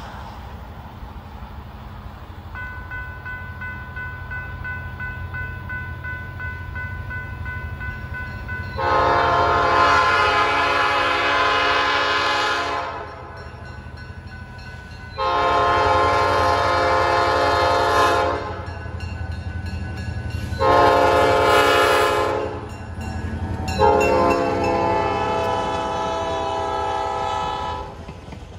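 Diesel locomotive's air horn sounding the grade-crossing signal: two long blasts, a short one and a final long one, over the low rumble of the passing locomotive's diesel engine. A steady bell-like ringing starts about three seconds in, before the horn.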